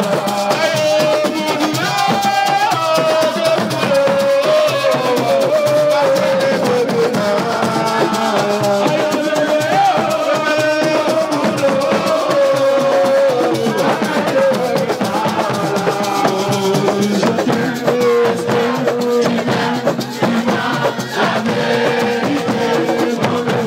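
Music with a sung or played melody over dense, fast percussion and a shaker-like rattle.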